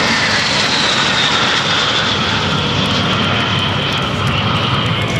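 A formation of four L-39 Albatros jet trainers flying past, their single turbofan engines giving loud jet noise with a high whine that slowly falls in pitch as they go by.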